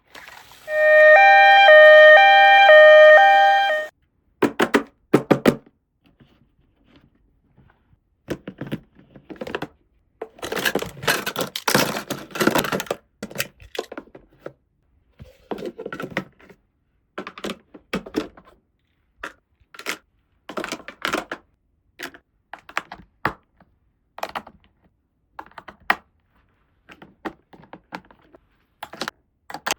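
A toy's loud electronic sound plays for about three seconds, a pitched tone that steps back and forth between two notes. After it come many short plastic clicks, taps and knocks, with some crinkling, as the small toy pieces are handled.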